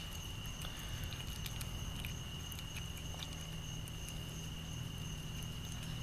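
A cat eating wet canned cat food from a plastic bowl: faint, irregular small clicks and smacks of chewing and licking.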